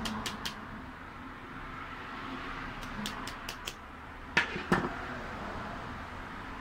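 Light, evenly spaced clicking, about five clicks a second, stopping half a second in and coming back briefly around three seconds in, then two sharp clicks a third of a second apart, the loudest sounds, from pliers and a car fuel pump assembly being handled. A steady hiss lies under it all.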